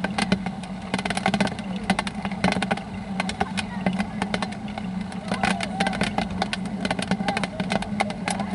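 Raindrops tapping on an umbrella close over the microphone: dense, irregular sharp ticks, several a second, over a steady low hum and faint distant voices.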